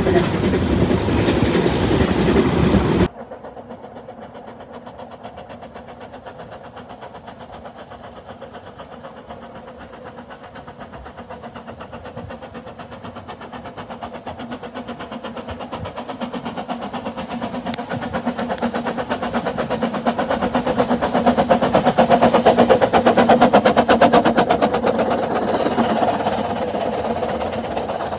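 Narrow-gauge steam train. A loud stretch of train sound cuts off suddenly about three seconds in. Then a steam locomotive and its carriages are heard faintly approaching, with a fast, even beat, growing louder to a peak about twenty-three seconds in as the train passes, and fading as it draws away.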